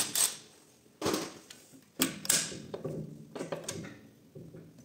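Metal clunks, clicks and scraping as a component is worked loose and pulled out of the back of an Audi multitronic CVT gearbox case, with a loud sharp burst right at the start.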